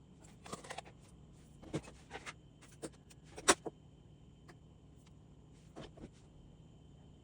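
Handling of a Ninja espresso machine's parts: a series of short clicks and knocks, the loudest a sharp knock about three and a half seconds in, over a faint steady hum.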